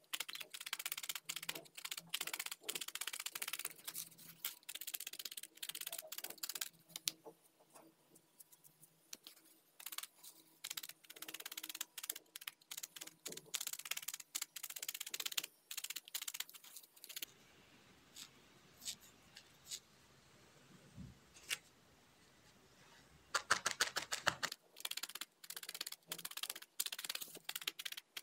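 Felting needle stabbing repeatedly through wool into a foam pad, a quick run of crisp ticks several times a second as a thin layer of tan wool is felted onto a white wool base. Past the middle the ticks thin out, then come back as a short fast flurry.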